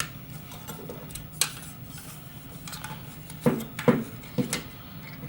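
Small metal clicks and clinks of a screwdriver and screws against a hard drive and its metal drive mount as the drive is screwed in: about five sharp taps, most of them bunched together near the end.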